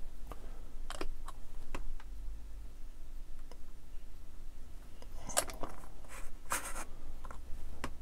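Light clicks and short scratchy scrapes of small plastic model-kit parts and hobby tools being handled on a workbench, a few at a time, busiest with a brief scratchy scrape about six and a half seconds in. A steady low hum runs underneath.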